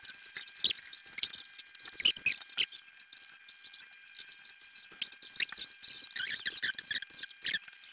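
Camlin graphite pencil scratching on drawing paper in quick, irregular short strokes, a dry, high-pitched scratch while shading.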